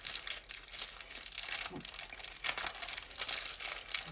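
Plastic accessory bag crinkling and rustling in the hands as a cable is unwrapped from it, with an irregular run of crackles and a louder crumple about two and a half seconds in.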